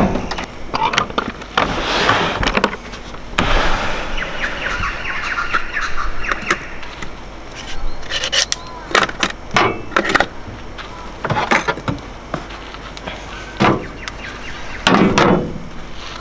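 Gear and food being unpacked from a car and its fridge: a string of clunks, knocks and rattles, with a rapid ticking rasp lasting about three seconds near the start.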